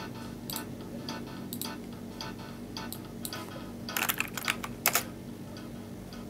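Light, uneven ticking clicks, two or three a second, over a low steady hum. A quick cluster of louder computer-mouse clicks comes about four to five seconds in.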